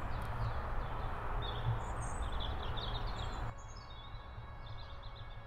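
Birds chirping over a steady outdoor background noise with a low rumble. About three and a half seconds in, the background noise drops suddenly while the chirping goes on.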